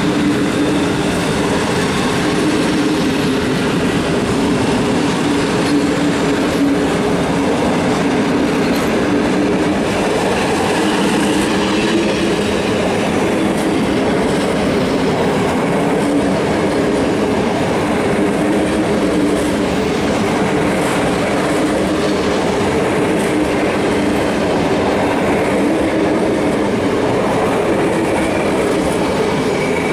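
Long train of PKP Intercity passenger coaches passing close by, a loud, steady rolling noise of steel wheels on the rails with a low hum underneath.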